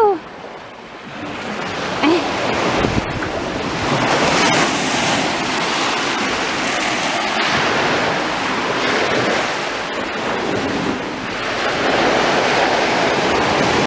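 Small lake waves washing onto a pebbly sand shore, a steady rushing wash, with wind buffeting the microphone.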